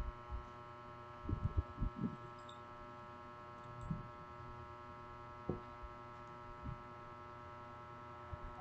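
Steady electrical hum made of several fixed pitches, with a few soft low bumps, a cluster of them about a second and a half in and single ones later.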